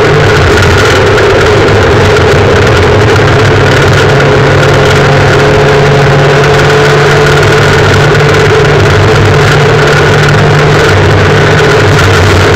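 Volkswagen rally car's engine running hard at fairly steady revs, loud inside the cabin, over the rumble of tyres on gravel.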